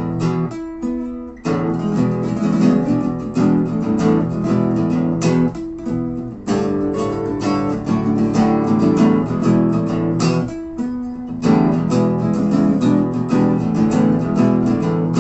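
Two acoustic guitars strumming chords in a rhythmic song intro, with short stop-time breaks about a second in, near the middle and again about two-thirds through.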